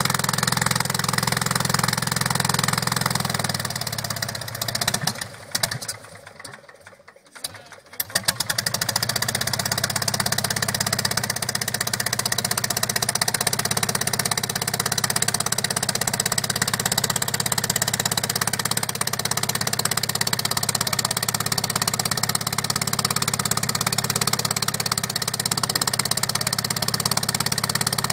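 Vintage light aircraft's piston engine and propeller running steadily. The sound drops away for a few seconds about six seconds in, then comes back.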